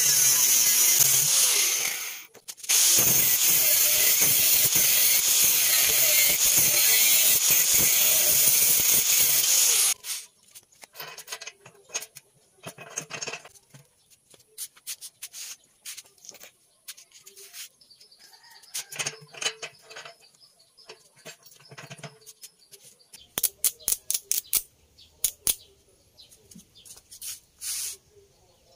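Makita angle grinder grinding the steel of a gas-bottle mixer drum: a loud, steady grinding noise with a short break about two seconds in, stopping about ten seconds in. After that, scattered light clicks and taps, with a quick run of them near the end.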